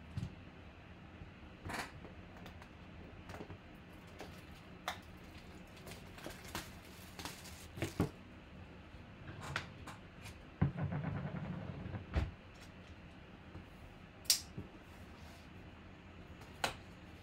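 Scattered light taps and clicks of a sealed cardboard trading-card box being handled on a table, with a longer scraping stretch lasting over a second about eleven seconds in. Near the end a folding knife cuts into the box's wrapping.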